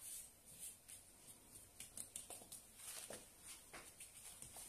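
Faint, irregular soft rustling and light strokes from filo pastry sheets being handled on the counter.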